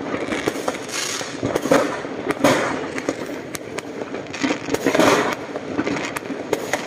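New Year's Eve fireworks going off in a dense barrage, many overlapping bangs and crackles coming several a second without a break.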